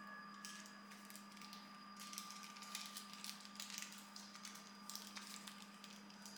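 Faint light clicks and scraping, clustered about two to four seconds in, over a steady low electrical hum.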